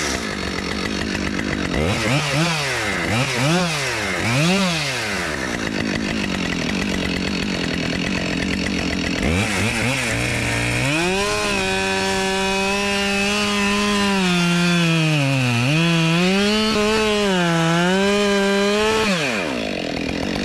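Husqvarna 572 XP two-stroke chainsaw revved three times and left idling, then held at full throttle through a cut in a log, its pitch dipping repeatedly as the chain loads in the wood, before falling back to idle near the end.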